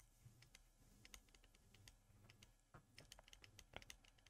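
Near silence with faint, irregular clicks scattered throughout.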